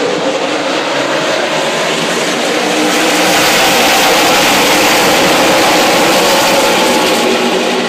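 A pack of NASCAR race trucks' V8 engines at full throttle as the field accelerates on a restart and passes the grandstand. The sound swells to its loudest about four seconds in as the pack goes by, then eases slightly.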